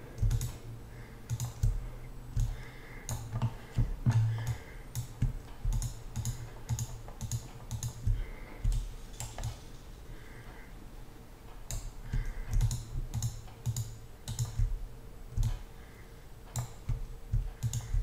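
Irregular clicks and taps from a computer mouse and keyboard, some in quick runs, with soft low thuds and a faint steady hum under them.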